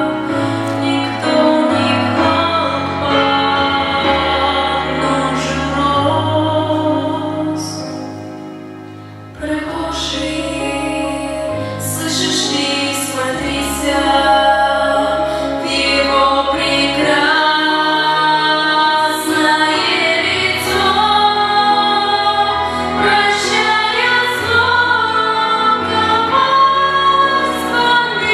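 A group of women singing a Christian song together over an instrumental accompaniment with a steady bass line. The music fades out about eight seconds in and starts again about a second later.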